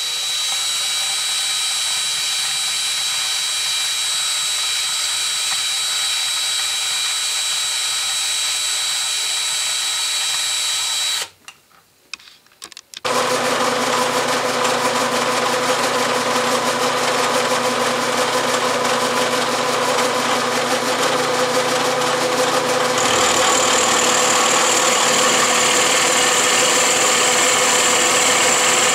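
A steady motor whine for about eleven seconds, then a brief near-silence. Then a vertical milling machine runs with an end mill cutting into the body of a three-jaw scroll chuck, and about ten seconds later the cutting grows louder and hissier.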